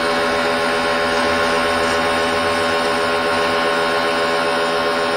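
Small corded Black+Decker electric pressure washer running steadily, its motor and pump giving a steady whine, over the hiss of the water jet spraying onto a concrete paving slab.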